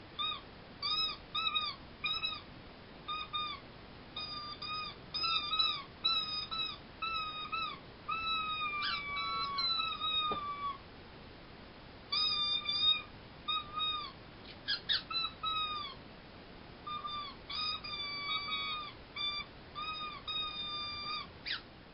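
High-pitched squeaks in quick speech-like runs, each squeak bending in pitch, used as 'squeaky talk' in place of words; two short pauses break the runs, and a single rising squeal comes near the end.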